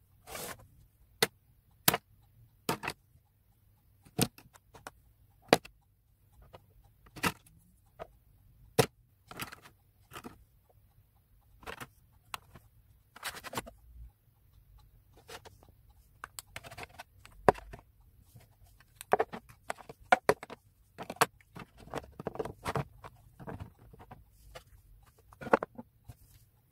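Makeup products and clear plastic organiser trays being set down and moved about in a wooden drawer: irregular sharp clicks and clacks, bunching into quick clatters about two-thirds of the way through.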